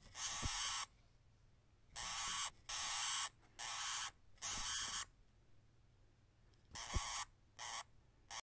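Deer mouse sounds: a string of short, hissy bursts without a clear pitch, five in quick succession and then three shorter ones near the end.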